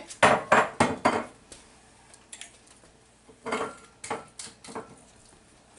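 Kitchen clatter from a bottle and utensils being set down and handled on a countertop: a quick run of knocks and clinks in the first second, then another group of knocks about three and a half seconds in.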